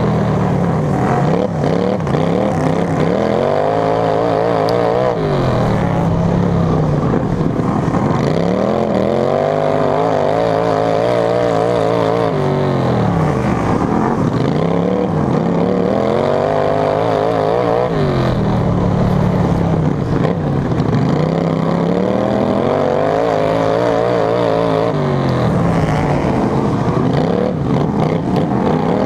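Racing lawn tractor's engine heard from on board, loud throughout, rising in pitch as it accelerates and falling back as it slows, about five times over, every five to six seconds.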